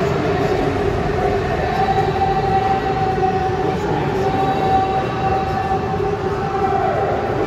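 Go-karts running laps on an indoor track: the steady, high whine of their electric motors over a background hum, the pitch dipping slightly as a kart slows near the end.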